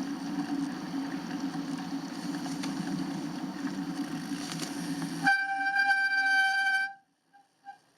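A steady low rumbling noise, then about five seconds in a loud, steady, single-pitched horn-like tone that holds for about a second and a half and cuts off abruptly.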